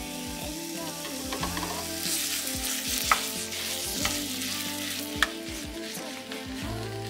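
Ground beef sizzling in hot oil in a saucepan while a spatula stirs and breaks it up, with three sharp knocks of the spatula against the pan about three, four and five seconds in.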